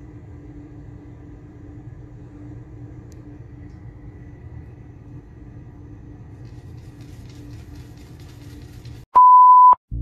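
Low steady rumble with a faint hum, then about nine seconds in a loud, steady electronic beep tone lasting just over half a second, ending abruptly.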